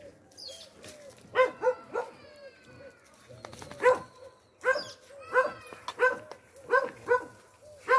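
Dog barking repeatedly: about eleven short, sharp barks in irregular runs, starting a little over a second in.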